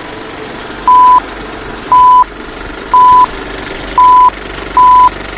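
Film-leader countdown beeps: five short beeps at the same mid pitch, roughly one a second, over a steady background hiss and rattle.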